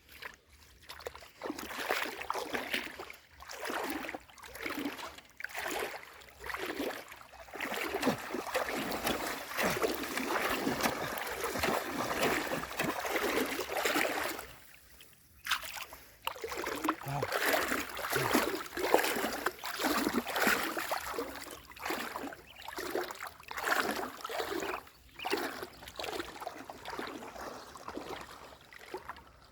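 Shallow muddy river water splashing and sloshing in irregular surges, with a short lull about halfway through.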